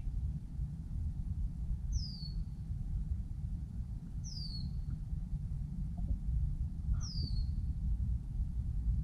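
A bird calls three times, each a short high whistle that falls in pitch, a couple of seconds apart, over a steady low rumble.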